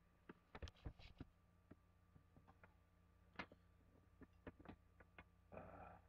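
Faint, scattered clicks and light knocks of small objects being handled, with a short rustle about five and a half seconds in, over a low steady hum.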